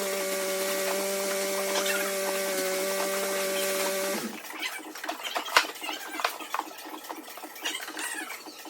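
A steady machine hum for about four seconds, which cuts off abruptly. Then rapid, rhythmic squeaky rubbing of 2000-grit wet sandpaper stroked back and forth over a car fender's clear coat to level paint runs.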